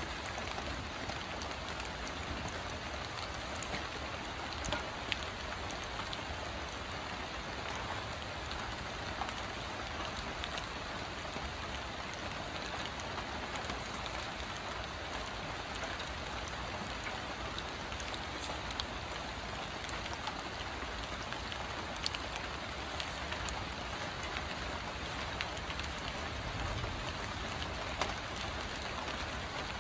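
Rain falling steadily, with scattered drops ticking now and then.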